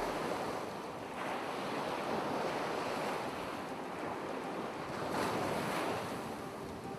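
Ocean surf: waves breaking and washing up a shore, swelling about a second in and again about five seconds in.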